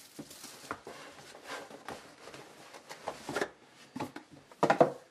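Hands handling and opening a cardboard trading-card box: scattered rustling and scraping of cardboard, with a couple of louder scrapes late on.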